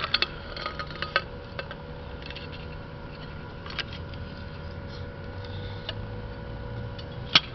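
Light clicks and clinks from handling a welded stainless steel plate, clustered in the first second or so, a few more later, and one sharp click near the end, over a steady hum.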